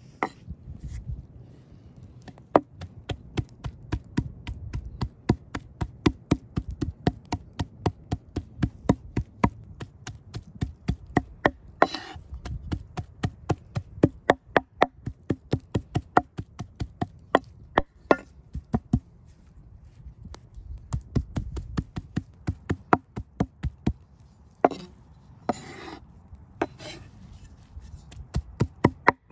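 Large kitchen knife chopping raw pork into mince on a wooden cutting board: rapid, even blade strikes on the wood, about three to four a second, with a couple of brief pauses.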